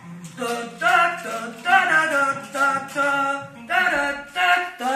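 Unaccompanied singing in phrases of long held notes, about a second each, with short breaks between them.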